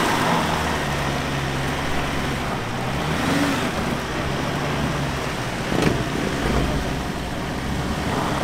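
Mitsubishi L200 pickup's engine running under load as it is winched forward out of deep muddy ruts, with one sharp knock about six seconds in.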